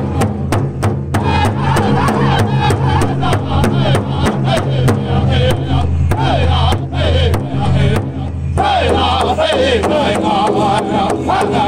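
Powwow drum group singing a chicken dance song: several voices in a high, wavering chant over a large hide drum that many drummers strike together in a steady beat, about three to four beats a second. The beat and voices break briefly about eight seconds in.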